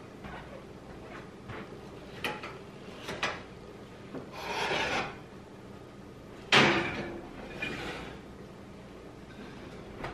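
A heavy lidded Dutch oven going into a kitchen oven: a few light knocks, then the pot scrapes across the metal oven rack, followed about two seconds later by a loud metallic clunk with a short ring as the rack and oven door are pushed shut, and another knock at the end.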